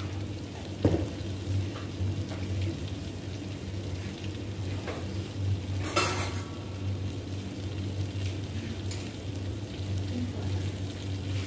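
Butter sizzling steadily in a stainless steel saucepan as crushed red chilli, black pepper and salt are sautéed in it, with a couple of short clicks.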